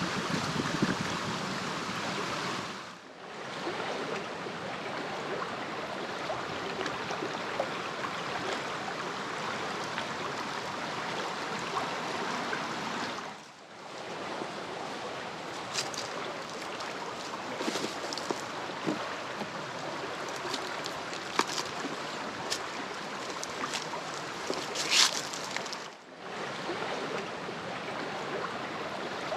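Blackwater creek rushing steadily over small rapids, the flow dipping briefly three times. A few sharp ticks sound over it in the second half, the loudest near the end.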